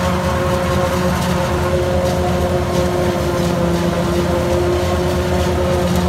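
New Holland FX48 self-propelled forage harvester running under load, chopping maize and blowing it out through its spout, mixed with a tractor's engine alongside. A steady low rumble with a constant whine over it, unchanging throughout.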